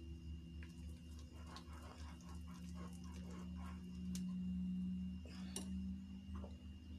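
Wire whisk stirring batter in a glass bowl: faint, scattered clicks of the wires against the glass over a low steady hum.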